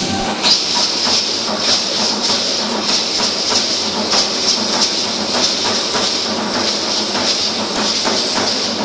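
Matachines dance rattles and the reed or tin fringes of the dancers' costumes shaking together in a steady, loud hiss, with regular clicks on the beat of the dance.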